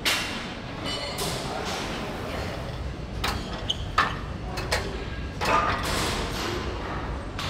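Scattered knocks and clanks from a plate-loaded leg machine as it is worked, about eight in all, with a short metallic ping near the middle, over the steady hum of a large gym hall.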